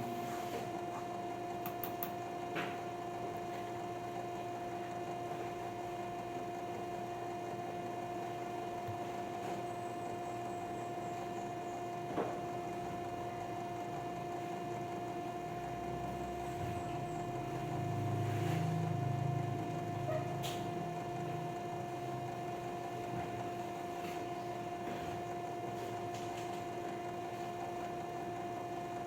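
Steady electrical hum made of two even tones, with a few faint clicks and a low rumble for a few seconds past the middle.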